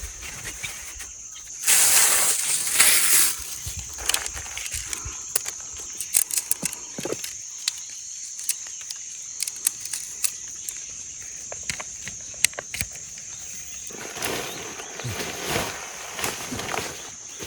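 Steady high-pitched drone of insects in the forest, with scattered sharp clicks. Loud rustling bursts come about two seconds in and again near the end.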